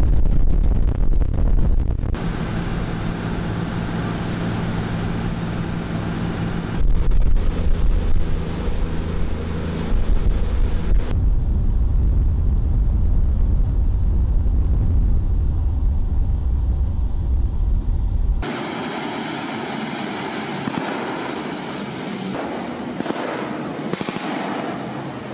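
Engines of a small armed river patrol boat running under way, a low steady drone with a deeper rumble in the middle. About three-quarters of the way through, the low end drops away and a rushing hiss of water and wind takes over as the boat speeds through spray.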